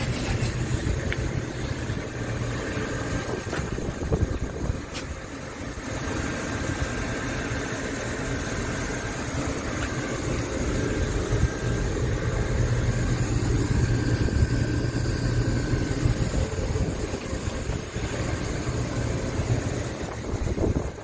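Scania P truck's diesel engine idling steadily.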